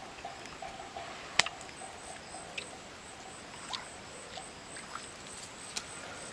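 Outdoor animal calls: a mid-pitched call repeating about three times a second that fades out about halfway through, and a high, thin pulsing call that starts about two seconds in and carries on. A sharp click about a second and a half in is the loudest sound, with a few fainter ticks scattered through.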